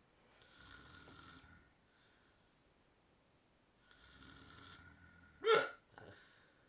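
A man passed out drunk, snoring: two long snoring breaths, then one loud, sharp hiccup about five and a half seconds in, with a fainter catch of breath just after it.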